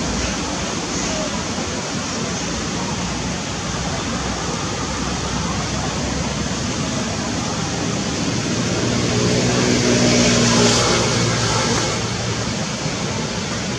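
Steady rushing outdoor background noise. A low droning hum swells louder from about nine seconds in and fades again near twelve.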